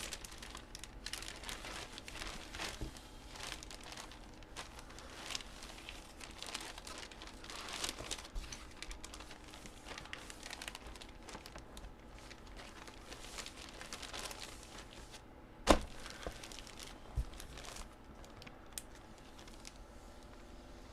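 Plastic and cardboard packaging crinkling and rustling as it is handled, with scattered light clicks and a sharp knock about 16 seconds in and a smaller one a second later.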